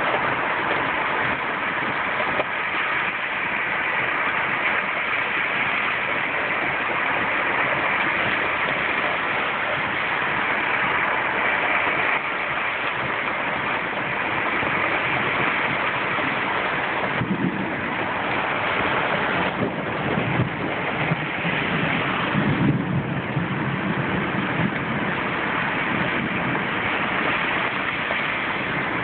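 Steady hiss of a heavy downpour. For a few seconds about two-thirds of the way in, a low rumble rises over it as an SUV drives through the muddy runoff on the road.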